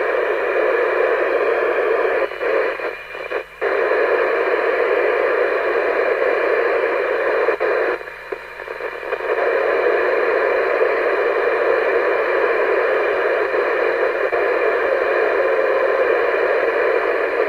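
Steady hiss of an FM CB radio receiver through its loudspeaker, with no signal coming through. The hiss drops briefly twice, about two to three and a half seconds in and again around eight seconds.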